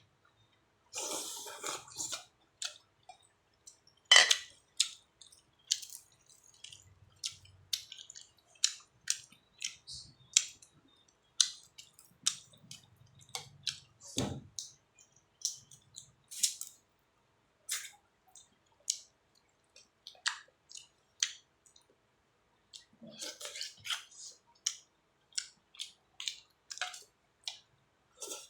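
Someone eating a meal: eating utensils clinking against bowls and dishes, with chewing, in scattered short clicks and one louder knock about four seconds in.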